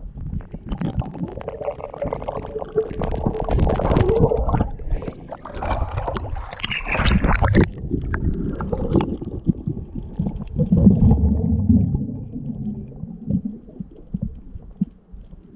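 Muffled underwater rumbling and gurgling from a diver spearing fish in a submerged mesh fish trap, with surges of air-bubble noise, the strongest a little past the middle.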